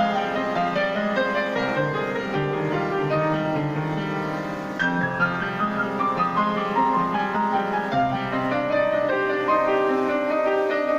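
Piano playing a continuous flowing passage of many notes, melody over a moving bass.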